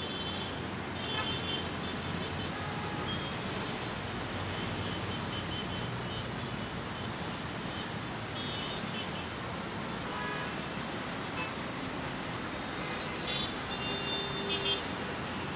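Steady background road-traffic noise with a few short, high toots now and then, the loudest cluster near the end.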